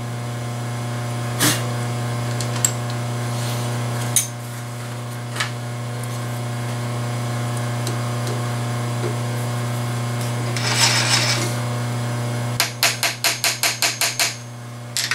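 A steady motor hum with a few sharp knocks over it; the hum cuts off near the end and is followed at once by a quick, even run of about nine clicks.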